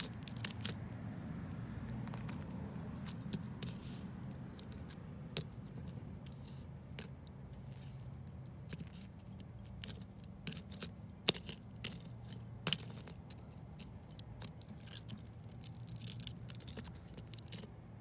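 A steel hand tool clicking, tapping and scraping against a thermite-melted aluminium combination lock and its slag as it is pried apart. Scattered sharp metallic clicks, the two loudest a little after eleven and twelve and a half seconds in, over a steady low rumble.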